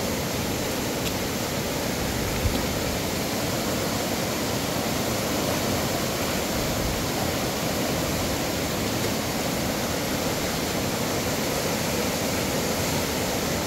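Steady rush of a river running high after heavy rain, with one soft knock about two and a half seconds in.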